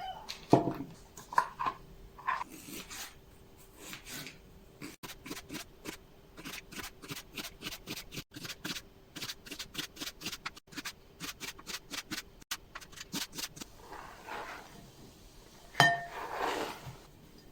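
A long run of quick, even, light taps, about three to four a second, like a knife tapping on a cutting board. A few louder knocks come in the first couple of seconds, and a louder clatter and scrape about a second before the end, over a faint steady hum.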